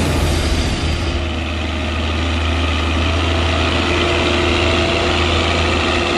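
Leitner LH500 tracked snow groomer's diesel engine running steadily as the machine pushes chopped maize silage up the silage pile, with a strong, even low drone.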